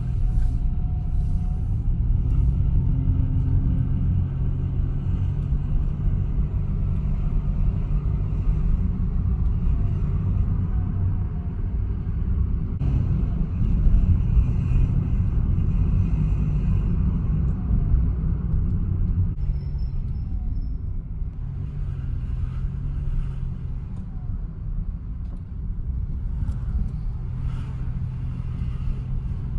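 2017 Mitsubishi Mirage's three-cylinder engine and CVT under way: a low rumble with a steady low drone that fades about two-thirds of the way through and comes back twice near the end. The owner takes the noise for a metal part vibrating, heard only while driving at certain revs and louder with the air conditioning on.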